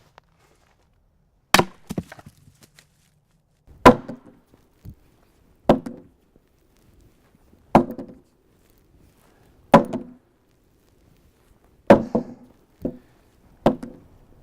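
Chopping blows on wood, about one every two seconds, each a sharp knock with a short wooden ring; near the end two come closer together.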